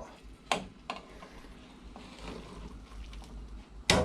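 Kitchen utensil knocking against cookware: two sharp knocks about half a second in, low room sound after them, then a loud knock near the end.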